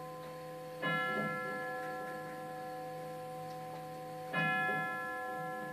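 Herschede nine-tube grandfather clock striking the hour on a tubular chime: two identical strokes about three and a half seconds apart, each ringing on long over the hum of the tubes still sounding.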